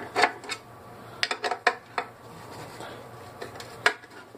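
A couple of rubbing strokes at the start, then scattered light clicks and clinks of a hand tool and small parts being handled against a projector's plastic base. There is a quick cluster of clicks about a second in and a single sharper click near the end.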